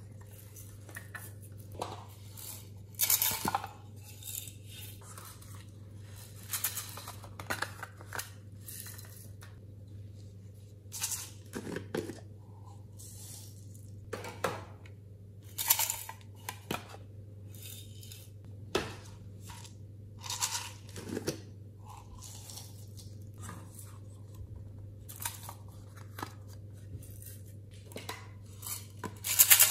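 Small plastic containers of glitter and sequins handled and tipped out over slime in a glass dish: scattered clicks, taps and rattles as lids snap and the glitter falls, over a low steady hum.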